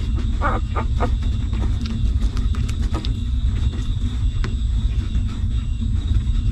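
Newborn puppies suckling at their mother dog, with a quick run of four short sounds about half a second in and a few faint sucking clicks later, over a steady low rumble.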